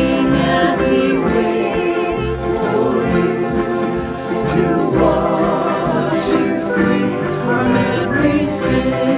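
A small group of mixed voices singing a worship song in harmony, accompanied by strummed acoustic guitars and a ukulele.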